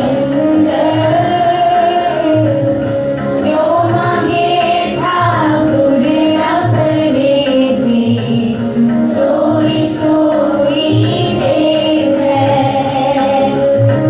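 A group singing a shabad, a Sikh devotional hymn, to a steady rhythmic accompaniment.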